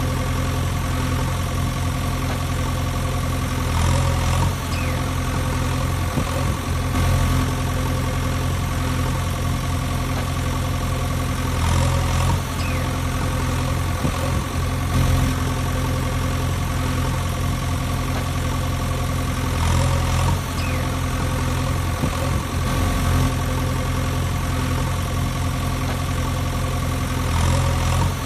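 Diesel tractor engine sound idling steadily, swelling slightly every few seconds, laid over toy play rather than coming from the toy machines themselves.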